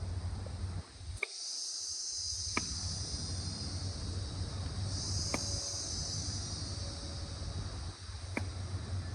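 Insects chirring in a high, steady buzz that comes in two long stretches, over a low steady hum, with a few sharp clicks in between.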